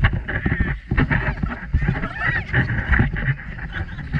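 Riders shrieking and shouting on a fast boat ride, over splashing water and wind on the microphone, with repeated sharp splashes.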